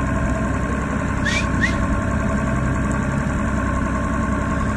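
Boat's outboard motor idling steadily. Two short rising chirps come through about a second and a half in.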